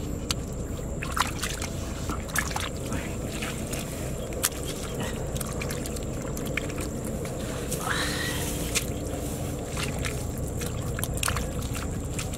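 Hands patting and smoothing wet mud in shallow water: scattered soft squelches, slaps and small splashes over a steady low background noise. A brief rising chirp comes about eight seconds in.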